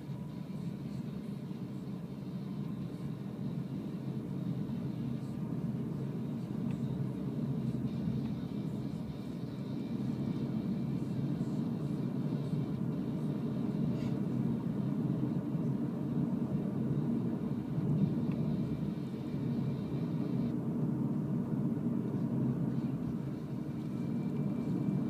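Steady road and tyre rumble heard inside the cabin of a moving Renault ZOE electric car, with no engine noise.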